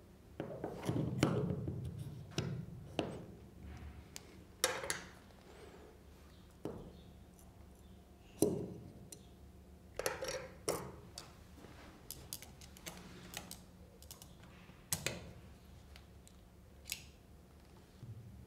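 Small metal parts handled by hand on a table: a drill bit and its tool holder give irregular clicks, taps and light metal knocks, the sharpest about eight and a half seconds in.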